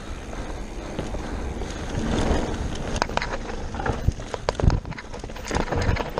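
Mountain bike descending a dirt trail at speed: tyres rolling over dirt and wind on the microphone make a steady low rumble, while the bike rattles and knocks over bumps, with sharper knocks from about three seconds in.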